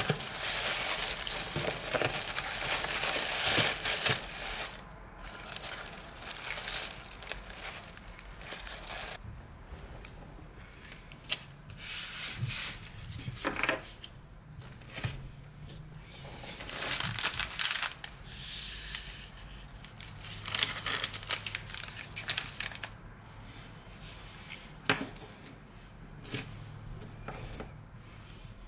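Tissue paper crumpled and rustled by hands, loudest for the first four seconds or so. Then comes intermittent rustling of paper with a few light knocks as rolls of washi tape and paper items are moved about on a wooden table.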